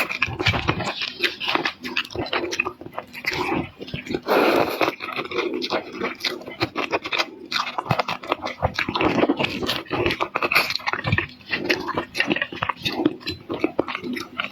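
Close-up eating sounds of a person chewing seafood: irregular wet smacking, crunching and mouth clicks throughout.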